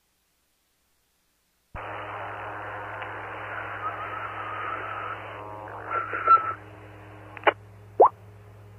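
A two-way radio transmission over a 2-meter ham repeater keys up suddenly nearly two seconds in: a steady hum and hiss through a narrow radio channel, a wavering tone, then three short sharp pops near the end.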